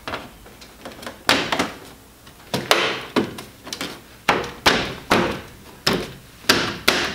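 Subaru Forester's plastic front grille being pressed and knocked into its mounting clips by hand: a series of about ten sharp plastic clunks and snaps, each with a short ring.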